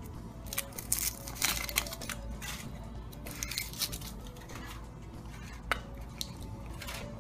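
Foil wrapper of a Kinder Surprise chocolate egg crinkling as it is peeled off by hand, then a single sharp crack near the end as the hollow chocolate shell is broken open.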